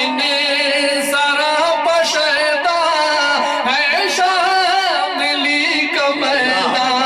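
A man chanting devotional Urdu verse (a kalam) into a microphone. His voice is melodic and ornamented, with wavering held notes.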